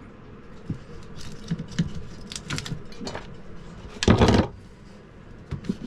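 Handling noises: scattered small clicks, taps and rattles, with one louder knock-like rustle lasting about half a second about four seconds in.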